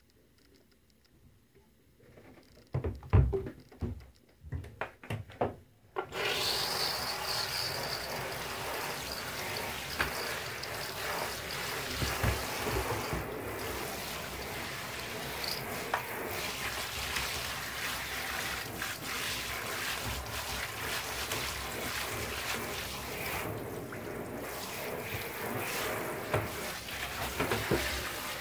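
Handheld bath shower spraying water in a steady hiss onto the plastic Kirby rug renovator head and the shampoo foam in the tub, rinsing it off. It starts about six seconds in, after a few sharp knocks and clatters of the head being handled against the tub.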